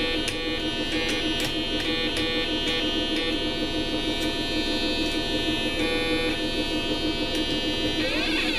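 A homemade Snap Circuits synthesizer putting out a steady, buzzy electronic drone with many overtones, crackling with sharp clicks as its wires and parts are moved. Near the end its pitch starts to sweep up and down.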